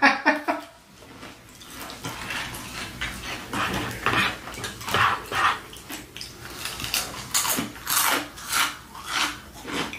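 Close-miked crunchy chewing of crispy fried food, about two crunches a second, louder in the second half.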